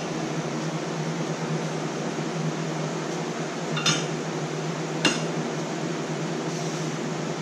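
Steady hum of a running fan, with two short sharp clinks a little over a second apart, about four and five seconds in, as a metal bait mold is handled.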